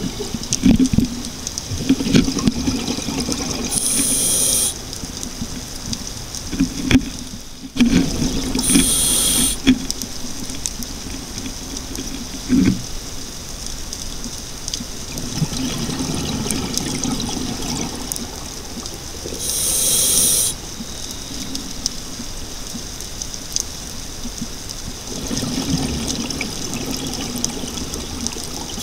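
A scuba diver breathing through a regulator underwater: a hiss lasting about a second on each inhale, coming three or four times several seconds apart, with bubbling of exhaled air between the breaths.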